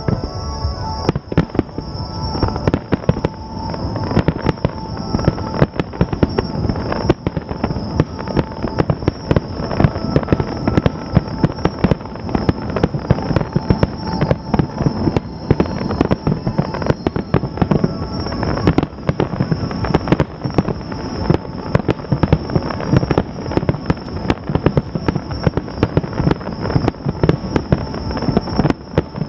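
Fireworks finale: aerial shells going off in a rapid, near-continuous barrage of sharp bangs, many overlapping.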